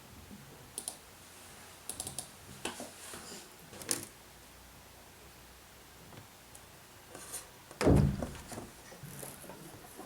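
Scattered light clicks and taps, with one louder thump about eight seconds in.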